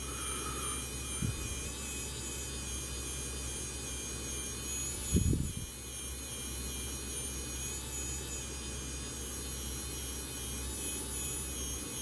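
3D printing pen running with a steady buzzing whine from its small filament-feed motor and fan as it extrudes plastic. There is a brief low thump about five seconds in.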